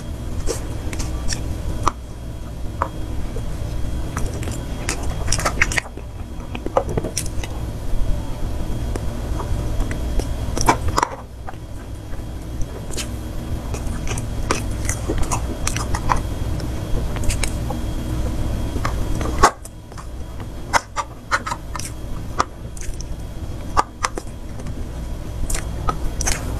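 Close-miked eating of soft cream cake: chewing and mouth sounds, with a metal spoon making frequent short clicks and scrapes against a clear plastic dessert box, over a steady low hum.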